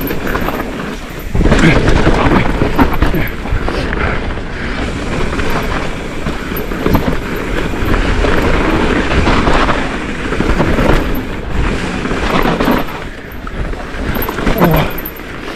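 Heavy electric mountain bike ridden fast down a rough trail: a continuous rattling rumble of tyres, chain and frame over the ground, with irregular jolts from the bumps.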